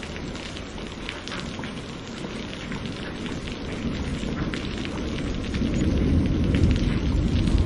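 Steady rain with the ticks of single drops hitting a surface. A low rumble of thunder swells through the second half.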